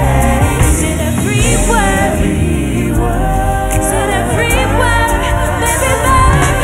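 Woman singing a slow soul/R&B song live with a full band, her voice sliding through melodic runs over a steady bass.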